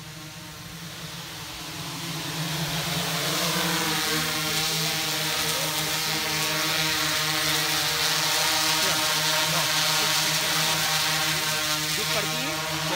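Propellers of a heavy-lift multirotor camera drone whirring as it flies in close, getting louder over the first few seconds and then holding steady. Its several rotor tones waver up and down in pitch as it hovers and adjusts.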